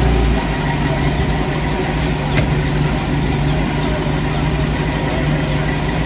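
A 1932 Ford Highboy's Chevrolet 383-cubic-inch small-block V8 idling steadily, with one faint click a couple of seconds in.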